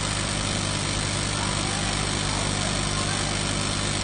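Panasonic KRII MIG welding machine switched on and idling, giving a steady hum under an even fan-like hiss.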